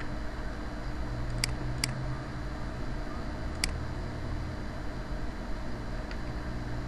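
Computer mouse clicking: two sharp clicks about a second and a half in, close together, and one more a little after three and a half seconds, over a steady low background hum.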